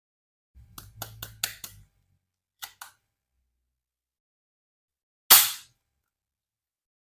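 Toy pistol being handled with a quick run of clicks, two more clicks, then firing once with a single sharp crack a little after five seconds in that dies away quickly.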